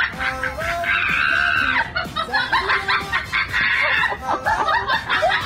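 Background music with a busy, changing melody laid over the clip.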